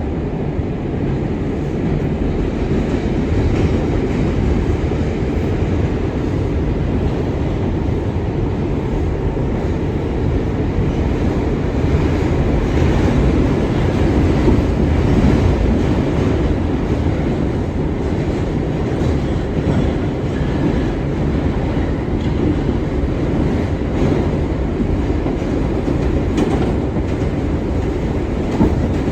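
R62 subway train running at speed, a steady low rumble with occasional clicks from the wheels.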